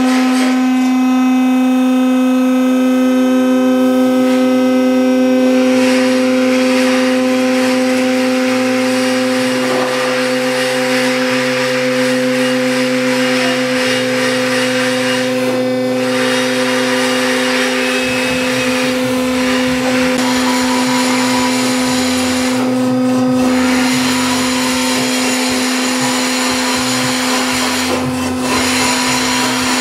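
A Peterson cylinder-head resurfacing machine runs with a steady, strong hum while it machines a warped cast-iron Chrysler 440 big-block head flat. About eighteen seconds in, a rougher low rumble joins the hum as the head passes under the cutter.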